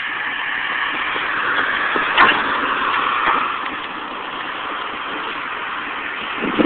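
Road traffic noise from a passing car, a steady tyre-and-engine hiss that swells and then eases off. A single short knock about two seconds in.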